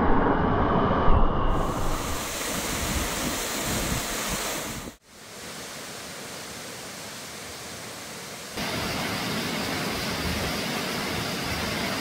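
Steady rushing of a small waterfall and its plunge pool, with low water sloshing close by at the start. The sound cuts out briefly about five seconds in, comes back quieter, and turns louder and brighter about eight and a half seconds in.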